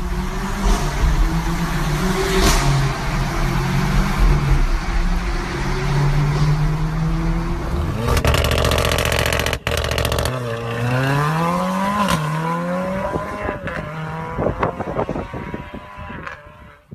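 Mercedes-AMG A45's turbocharged four-cylinder engine with a modified exhaust, revving hard. It holds high revs and changes pitch for several seconds, gives a loud rev about eight seconds in, and climbs again before dropping sharply. It then crackles and pops as the revs fall away.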